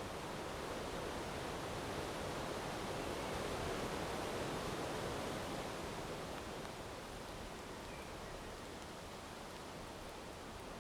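Steady rushing outdoor noise with no distinct events, swelling a little in the middle and easing off toward the end.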